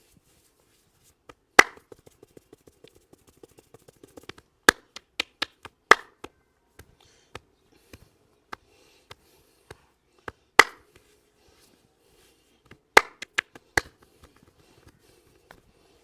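Hands slapping and tapping on the head and back during a massage: a handful of sharp, loud slaps a few seconds apart, with lighter, quicker taps between them.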